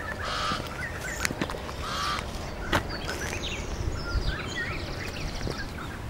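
Crows cawing, hoarse calls repeated about every second or two, with other birds chirping and a rattling call in the second half. Footsteps crunch on a gravel road.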